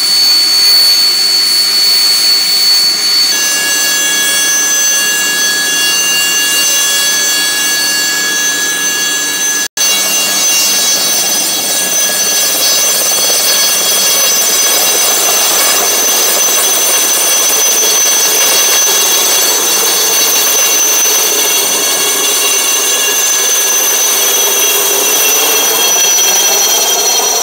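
HAL Chetak (Alouette III) helicopter's turboshaft engine running with a loud, steady high whine and the main rotor turning, the pitch of the whine shifting about three seconds in. Near the end the helicopter lifts off and the sound changes as it climbs away.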